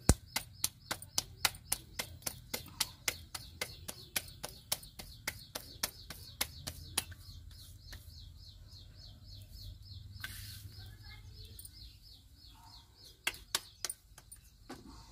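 Wet hands slapping a ball of wheat roti dough flat between the palms, a quick even patter of about three slaps a second that stops about seven seconds in, with a few more slaps near the end. A small bird chirps steadily in the background.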